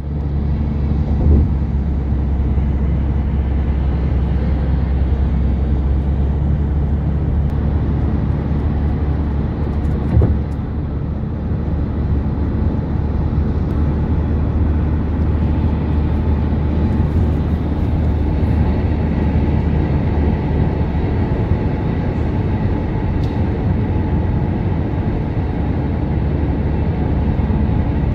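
Steady low rumble of a car driving at speed, heard from inside the cabin: engine and tyre noise on the road. Two brief thumps, about a second in and about ten seconds in.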